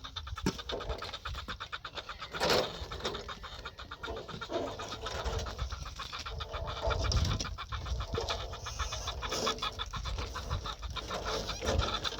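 Birds calling, over a steady low rumble.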